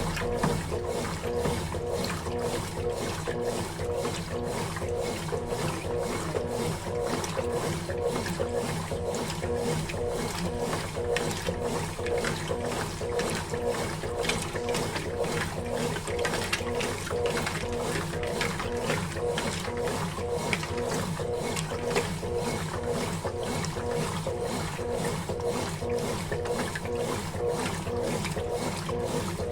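Consul Facilite CWG11 top-load washing machine running its wash cycle: a steady motor hum with an even, rhythmic churning of the load.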